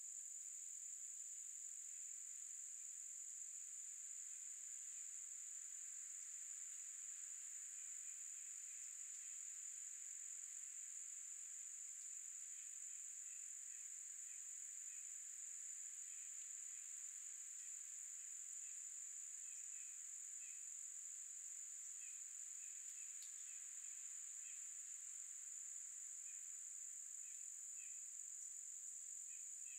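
Steady, high-pitched drone of an insect chorus, like crickets, with faint short chirps coming in about a third of the way through and repeating irregularly.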